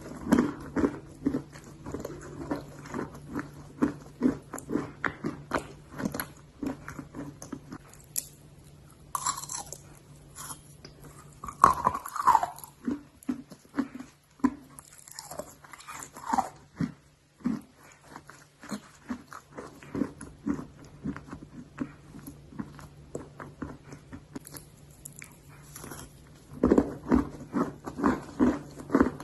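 A person biting and chewing hard, dry edible clay close to the microphone: rapid, regular crunches at first, then slower and sparser chewing, and quick crunching again near the end.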